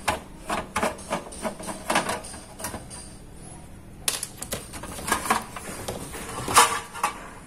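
Clicks, taps and scrapes of a DVR's sheet-steel case being handled as its unscrewed top cover is worked loose and lifted off, with a louder clack a little before the end.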